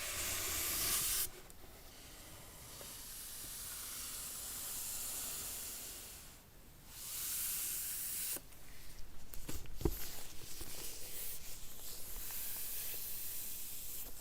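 Packaging of an Apple Magic Keyboard being handled: long hissing rubs and slides of box and wrapping, the first cutting off suddenly about a second in. From a little past halfway there is a run of quick small scrapes and taps.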